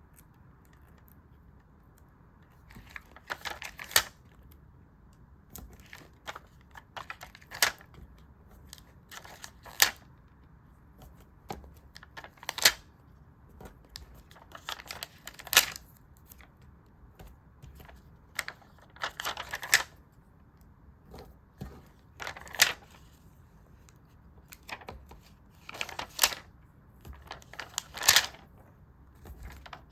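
Crisp clicks, crackles and rustles of stickers and paper being handled, coming in short clusters every two or three seconds.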